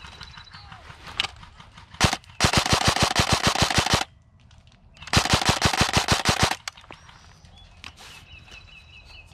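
Airsoft gun firing on full auto in two bursts of about a second and a half each, with a single shot just before the first burst.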